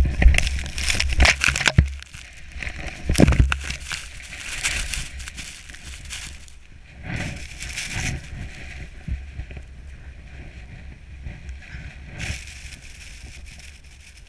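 Avalanche snow sliding and scraping over a GoPro Hero3+ housing in irregular surges, with heavy low buffeting in the first few seconds. The surges grow weaker over the last several seconds.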